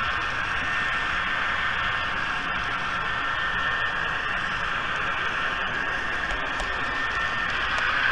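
A model train running along the track, heard from a camera riding on it: a steady whirring rolling noise with a faint whine, and occasional faint clicks.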